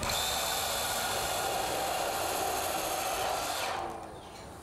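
Cordless drill running steadily as it drives a screw through a light-gauge steel stud into the bottom track, then stops abruptly shortly before the end.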